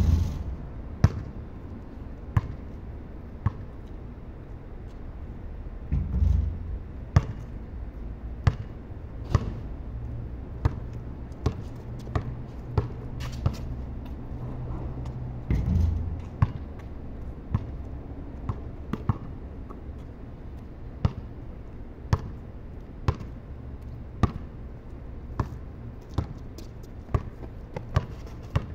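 Basketball bouncing on a concrete court: sharp single bounces about once a second, with three heavier low thumps, one near the start, one about six seconds in and one about sixteen seconds in.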